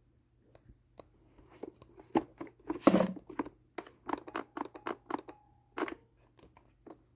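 Clicks, knocks and rattles of a Greenworks 80V battery chainsaw being handled, its motor not running because the saw is dead. A louder scraping rustle comes about three seconds in.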